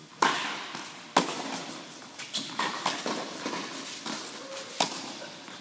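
Tennis balls hit with rackets and bouncing on an indoor court. There are two loud, sharp pops about a second apart near the start, each followed by an echo, then a run of fainter pops and taps.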